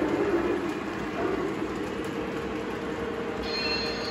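O gauge three-rail model train running along the layout track, a steady rolling and motor noise. A thin high-pitched tone joins about three and a half seconds in.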